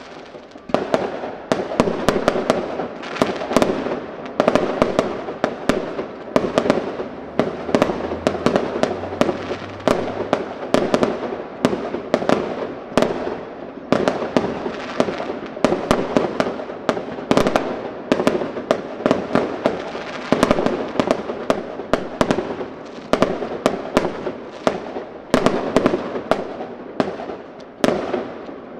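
Fireworks display: aerial shells bursting in quick succession, several sharp bangs a second over a continuous crackle.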